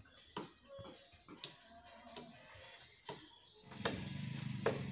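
Sharp chopping knocks of a blade striking wood, irregular and about once a second; near the end a low steady hum starts and becomes the loudest sound.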